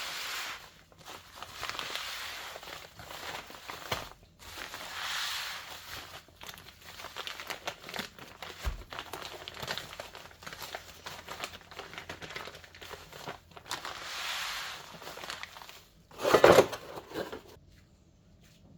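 Packaging material being handled and crumpled: swells of crinkling and rustling every second or two, with a louder burst near the end before it goes quiet.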